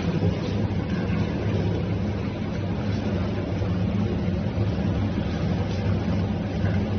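Commercial stainless-steel meat grinder's 11 kW electric motor running with a steady hum.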